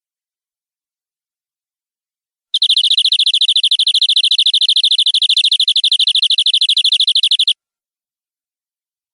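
Domestic canary singing one long, even, rapid trill of about five seconds. It starts about two and a half seconds in and cuts off suddenly.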